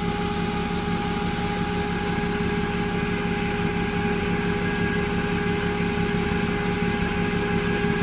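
BMW E30 engine idling steadily, with a steady whine held over the running.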